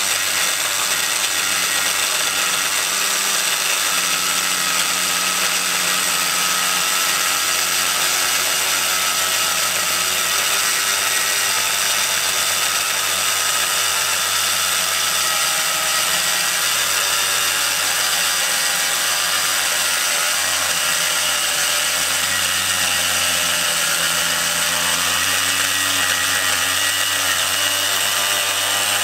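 Harbor Freight angle grinder with a cutoff wheel cutting through 3/16-inch steel flat bar, running steadily under load: the motor's whine over the grinding hiss of the abrasive wheel on the steel.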